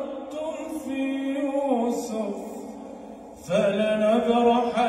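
A man's voice reciting the Quran in a slow melodic chant, drawing out long held notes. The voice slides down and softens about two seconds in, then comes back loud on a higher note about three and a half seconds in.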